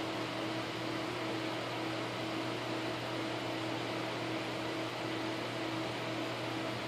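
Cooling fans of a water-cooled desktop PC whirring steadily while the graphics card runs a full-load stress test, with a steady low hum under the whir.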